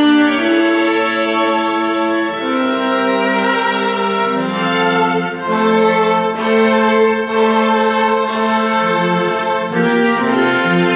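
Small string ensemble of violins and cellos playing live, several parts in long held notes that change every second or so.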